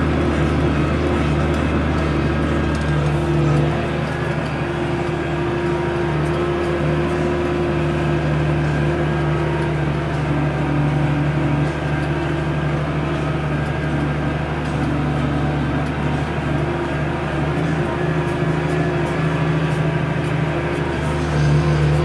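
New Holland M100 tractor's diesel engine running steadily under load while pulling a Kverneland plough through a field.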